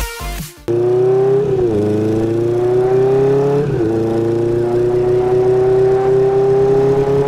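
Motorcycle engine running under load as the bike is ridden up through the gears. Its pitch climbs steadily and drops briefly at two upshifts, about a second and a half in and near four seconds. A burst of electronic music cuts off sharply just before the engine comes in.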